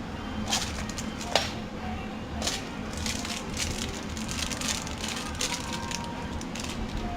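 Small metal screws and lock hardware clinking and rattling as they are handled and picked through: a run of sharp clicks, a few at first and busier from about three seconds in.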